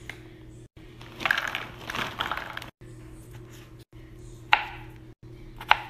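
A snack bag rustling as popcorn is poured out into a plastic platter, then a knife slicing through strawberries and clicking sharply on a plastic cutting board twice near the end.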